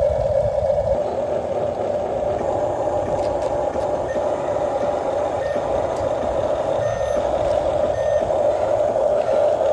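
Radio-controlled truck running with a steady whine, its reversing beeper giving short beeps about once a second from about four seconds in.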